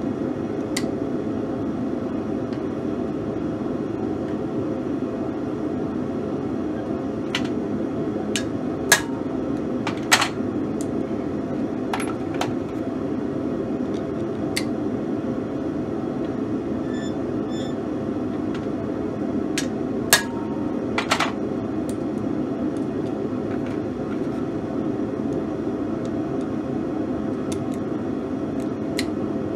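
Forge running with a steady rushing noise, with a dozen or so sharp metal clicks and clinks at irregular intervals as a steel letter stamp is handled and set in a pair of vise grips. The loudest clicks come about a third and about two thirds of the way through.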